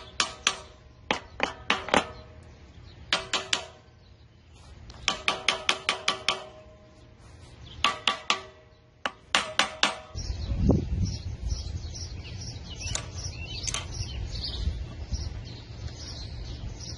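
Hammer blows on the metal of a removed air-cooled V-twin mower engine, struck in quick runs of three to seven blows, each one ringing. About ten seconds in the hammering stops and a steady low rumble takes over, with a few faint clicks.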